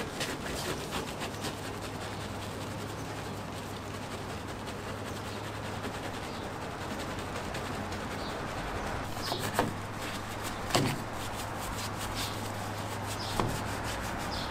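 Soft detailing brush scrubbing through soap foam on painted truck body panels and chrome badge lettering: a steady rubbing swish over a faint low hum, with a few short knocks in the second half.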